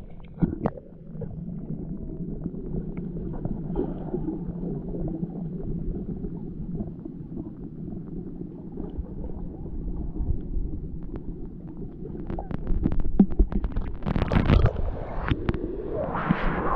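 Muffled rumbling and gurgling of water with scattered knocks and clicks, which grow busier and louder from about twelve seconds in.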